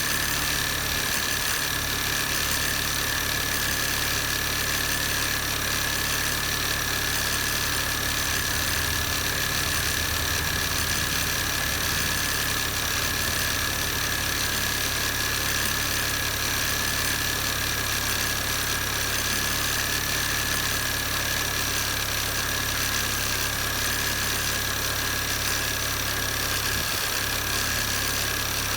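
R53 MINI Cooper S supercharged 1.6-litre four-cylinder engine idling evenly, with a steady high-pitched whine over the rumble: the abnormal noise being tracked down.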